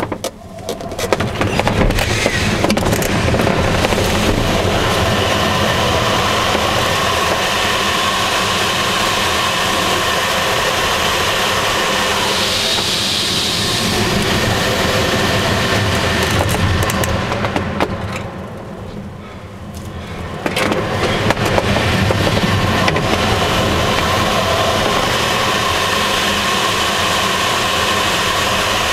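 Air rushing over the canopy and airframe of a Swift aerobatic glider in flight, with no engine: a loud, steady rushing noise. It builds over the first couple of seconds, falls away for about two seconds some two-thirds of the way through, then comes back.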